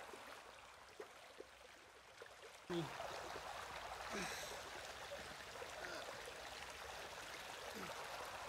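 Shallow rocky river flowing, a steady rushing hiss that jumps louder at a sudden cut about a third of the way in. A few short, low, falling tones sound over it.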